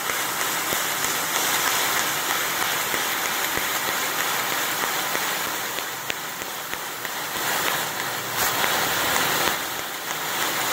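Fiber laser cutting head working along a steel tube: the steady hiss of the assist gas jet through the nozzle, swelling louder twice near the end.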